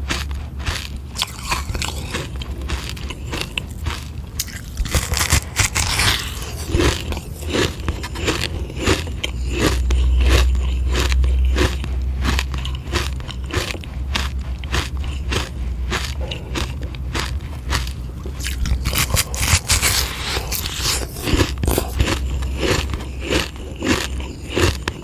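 Close-up biting and crunching of a frozen sugar-water ice, with hard ice cracking and scraping between the teeth in quick, irregular crunches.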